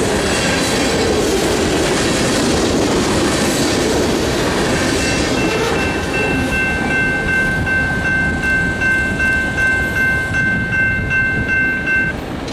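Tail end of a freight train rolling through the crossing, wheels clacking on the rails, fading out about five seconds in. Then the crossing's General Signals Type 2 electronic bell rings on its own with about two pulsing rings a second, and cuts off near the end as the crossing signals deactivate.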